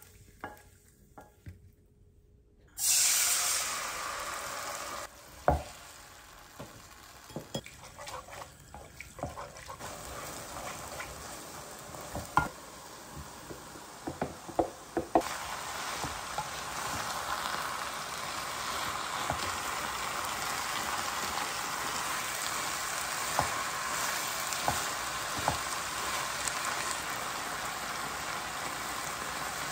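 Food stir-frying in a nonstick wok: a hot, sizzling hiss, with a wooden spatula scraping and knocking against the pan. The first few seconds are quiet apart from a few scrapes, the sizzle starts about three seconds in, and from about halfway it settles into a steady sizzle with occasional taps.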